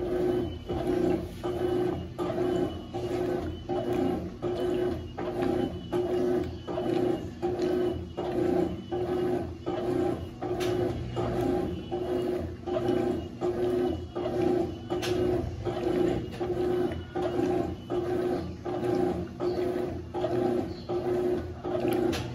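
Consul CWS12 12 kg top-loading washing machine agitating a load: its motor hums in even pulses, about one and a half a second, as the agitator swings back and forth.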